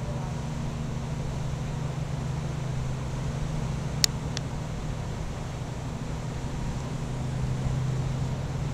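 Low, steady drone of a large car-carrier ship's engines as it passes close by. A sharp click comes about four seconds in, with a fainter one just after.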